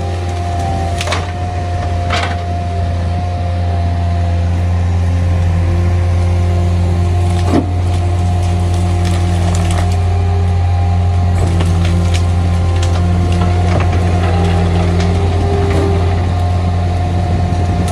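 Heavy machinery running steadily, a garbage truck and a skid steer loader with a deep engine drone and a hydraulic whine, as bulk green-waste branches are pushed into the truck's rear hopper. Several sharp cracks of branches snapping and breaking, the loudest about halfway through.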